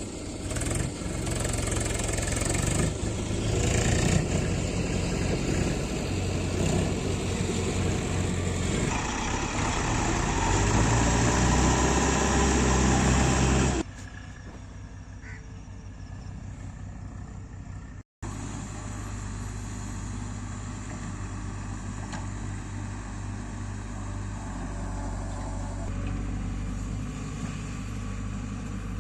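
Diesel engine of a JCB 3DX backhoe loader running hard under load for about the first fourteen seconds, then dropping abruptly to a quieter, steady run, with a brief dropout of sound a few seconds later.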